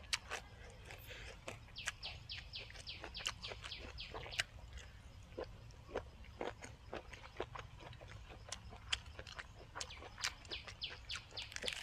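Close-up chewing and wet mouth noises of someone eating chewy squid tendon and fresh vegetables. A quick run of clicking smacks, about five a second, starts about two seconds in and lasts a couple of seconds, then single chews and smacks follow.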